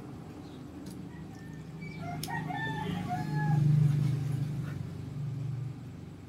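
A rooster crows once, starting about two seconds in, over a low hum that swells and then cuts off near the end. A knife clicks a couple of times on a plastic cutting board.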